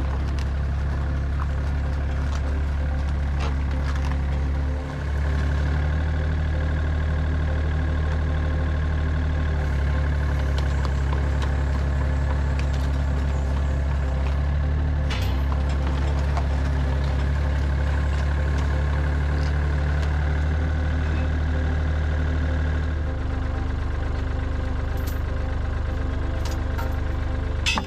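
Excavator engine running at a steady speed, dipping briefly about five seconds in and settling a little lower later on, with a sharp click near the end.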